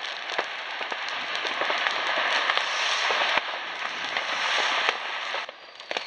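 New Year's Eve fireworks and firecrackers going off all across the town: a continuous crackle of many small, sharp bangs. The crackle eases briefly near the end.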